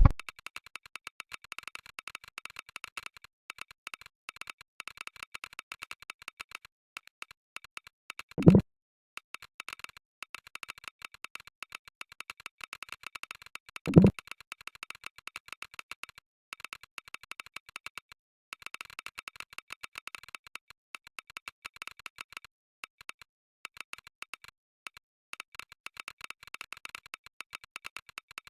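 Fast typing heard as Mechvibes' recorded Gateron Red linear-switch keystroke sounds: rapid, light clicks in runs broken by short pauses. Two much louder, deeper thuds stand out, one about eight and a half seconds in and one about fourteen seconds in.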